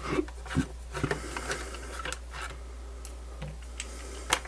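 Screwdriver backing small screws out of a plastic radio case: scattered light clicks and scrapes, with a sharper click near the end, over a steady low hum.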